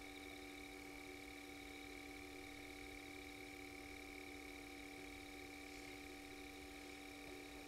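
Faint, steady drone made of several unchanging tones, high and low together.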